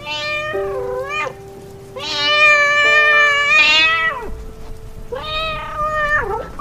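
A cat meowing three times, the middle meow long and drawn out, over background music with held notes.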